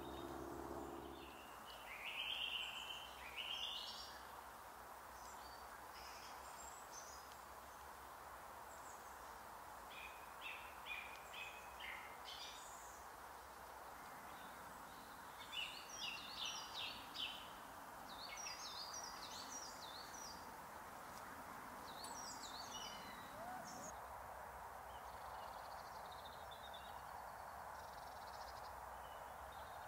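Faint wild birds calling and singing in winter woodland over a steady background hush, with short runs of quick chirping notes coming at intervals throughout.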